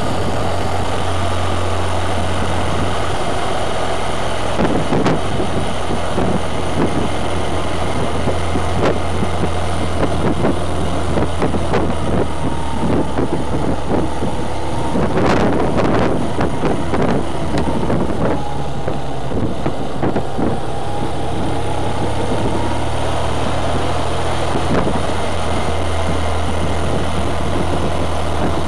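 Motorcycle engine running under way, with wind rushing over the bike's microphone. The engine note steps down and up a few times, and there is a brief louder rush of noise about halfway through.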